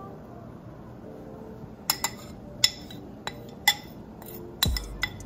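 Metal spoon clinking against a ceramic bowl, about half a dozen sharp ringing taps starting about two seconds in, as dry seasoning is knocked and scraped out into the pan.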